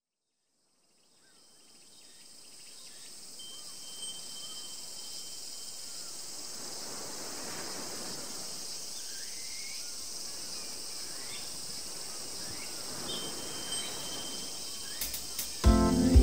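Outdoor nature ambience fading in over the first few seconds: a steady high insect chirring with occasional short bird chirps. Music with a beat starts near the end.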